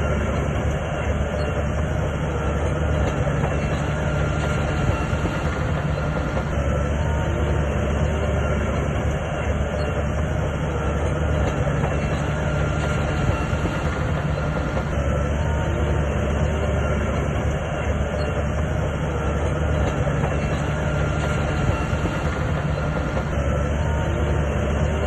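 Crawler bulldozer working: its diesel engine runs steadily under load while the steel tracks clank and squeak continuously. The same stretch of sound recurs about every eight seconds.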